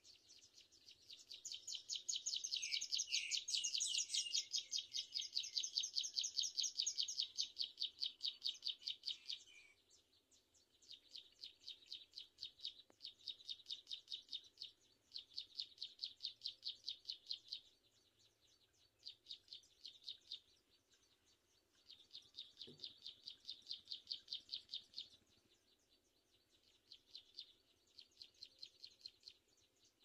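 Raptor nestlings calling from the nest: rapid, high-pitched trilled chatter in bouts, first one long bout of about eight seconds, then a string of shorter bursts of two to three seconds each.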